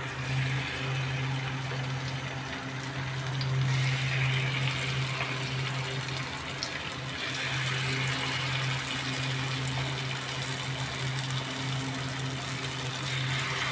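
Batter fritters of ground chana dal and goat brain deep-frying in foaming hot oil, a steady sizzle with small crackles throughout. A steady low hum runs underneath.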